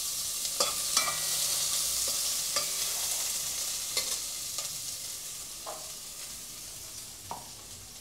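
Chopped red bell pepper and other vegetables sizzling as they are sautéed in hot oil, with a utensil scraping and knocking against the pan every second or so as they are stirred. The sizzle slowly grows quieter.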